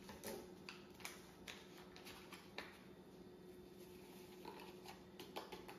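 Faint rustling and light clicks of a paper seasoning packet being handled and its dry ranch mix shaken out into a cup of melted butter, over a low steady hum.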